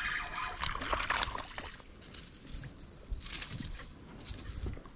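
Water splashing and sloshing at the surface as a small hooked crappie is reeled in, in uneven bursts with the loudest splash a little past three seconds in.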